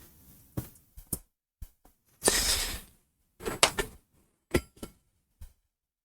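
Sheets of copier paper and aluminium foil being handled and slid across one another. There are short rustles and light knocks, with a longer rustle about two seconds in.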